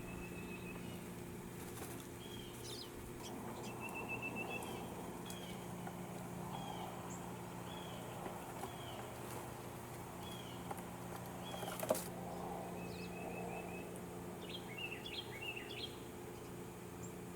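Birds chirping: short high call notes repeated every half second or so, with a couple of brief trills and a quick flurry of notes near the end, over a steady low hum; a single sharp click about twelve seconds in.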